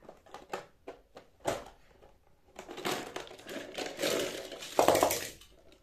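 Plastic shape-sorter toy box being handled: a few sharp plastic clicks, then a few seconds of rattling and clattering as it is tipped up, loudest about five seconds in.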